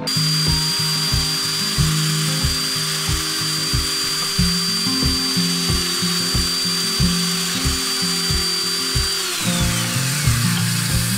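Benchtop drill press running and drilling through aluminium angle, a steady high whine with cutting noise; about nine seconds in the motor is switched off and its whine falls away. Background music with a steady beat plays over it.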